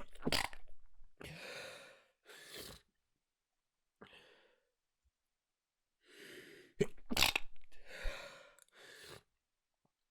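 A person stifling sneezes so as not to make noise. A sharp, held-back sneeze comes right at the start, followed by breathy exhales. About six seconds in, an inhale leads into a second muffled sneeze in two quick bursts, then more breathy exhales.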